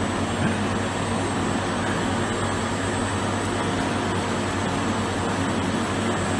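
Steady mechanical drone of running machinery with a low hum underneath, unchanging throughout.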